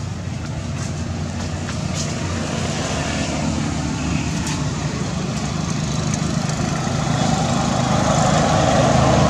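A motor vehicle engine running steadily, growing louder toward the end, with a few faint clicks.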